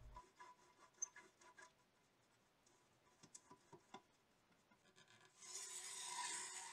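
Pastry brush rubbing butter over a baking pan: faint scattered light scrapes and taps, then a louder brushing stroke lasting about a second near the end.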